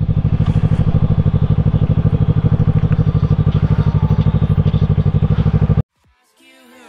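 2016 Kawasaki Ninja 650's parallel-twin engine running at a steady pitch with an even pulsing beat, heard from the rider's helmet. It cuts off suddenly near the end.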